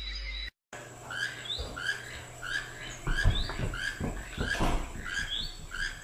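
A small animal gives a short squeaky chirp, over and over, about twice a second, each with a quick upward flick in pitch. Some low knocks come in the middle. The chirping starts after a brief dropout about half a second in.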